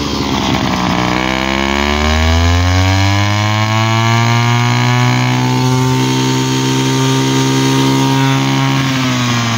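Zenoah G3K two-stroke brush cutter engine (34 cc) revved from a low speed up to full throttle over the first couple of seconds, held steady at high revs, then let back down near the end.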